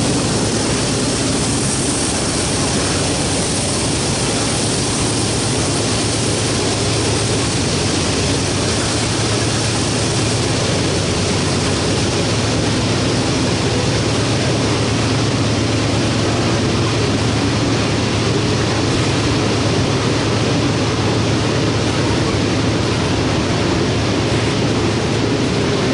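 Diesel-electric freight locomotives working hard to pull and push a heavy grain train up a grade. A loud, steady engine drone sits under a constant rushing rumble from the train.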